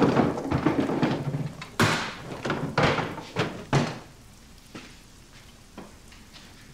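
Wooden cabinet drawers pulled open and knocked shut, with clattering and thuds from rummaging through them. The sharpest knocks come about two seconds in and near four seconds, then only a few faint knocks.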